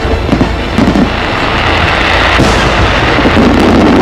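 Aerial fireworks shells bursting in rapid succession, their booms running together with many sharp cracks into a continuous loud din.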